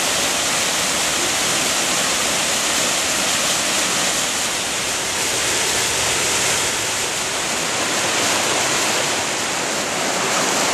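Creek water pouring over a small rocky waterfall into a pool: a steady, unbroken rushing hiss.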